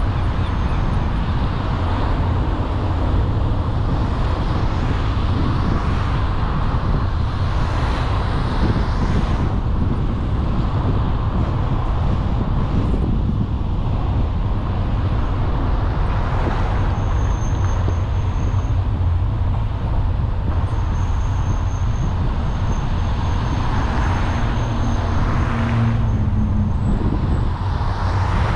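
Steady road noise from a car driving along town streets: low engine and tyre rumble with tyre hiss. It swells as oncoming cars pass, about eight seconds in and again near the end.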